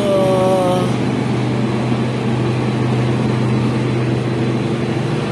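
Steady low engine hum from a passenger train standing at the platform, with a brief pitched call or tone, falling slightly, in the first second.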